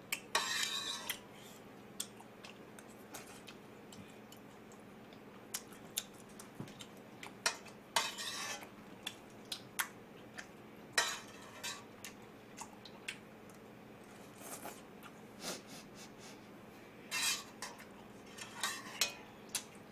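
A metal utensil clinking and scraping against a metal pot while food is scooped out, in scattered sharp clicks with a few short scraping bursts.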